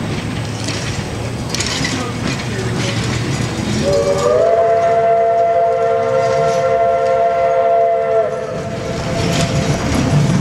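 Oporto semi-convertible trolley sounding a multi-tone whistle, a steady chord held for about four seconds that starts about four seconds in and cuts off sharply. Its wheels rumble steadily on the rails throughout.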